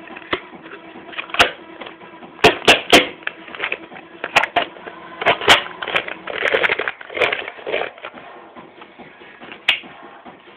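Hands knocking a small box and playing cards against a tabletop: scattered sharp taps, including a quick run of three, and a brief rustle of cards sliding about two-thirds of the way through.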